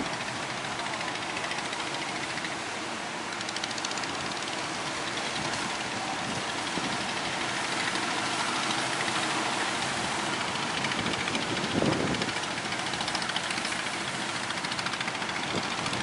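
Engines of outrigger fishing boats running steadily through the surf, over the wash of breaking waves, with a brief louder burst about twelve seconds in.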